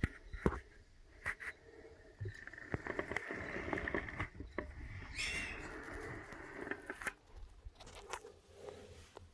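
Rustling and scraping, with scattered sharp clicks and knocks, of things being handled and shifted around inside a hunting ground blind; busiest in the middle stretch.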